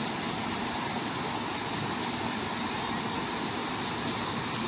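Steady rush of water spilling over small stepped weirs in a concrete channel.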